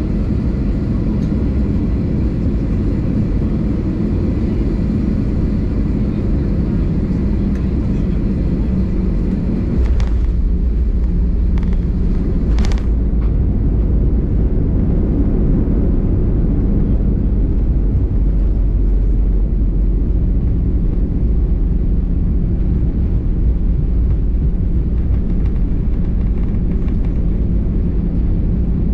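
Airbus A320 cabin noise while taxiing: a steady deep rumble of engines and airflow. The low rumble gets louder about ten seconds in, with two brief clicks soon after.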